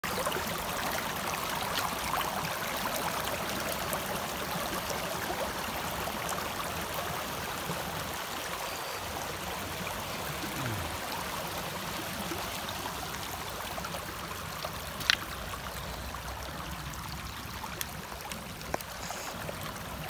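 Shallow stream running over rocks, a steady rush and trickle of water, slightly louder at first. One sharp click about fifteen seconds in.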